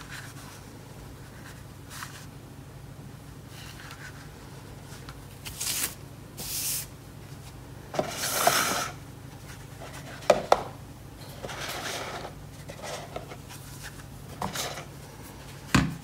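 Knit-gloved hands handling a Razer Basilisk V3 gaming mouse over a sheet of paper: short rubs and rustles, with two quick sharp clicks about ten seconds in and another just before the end.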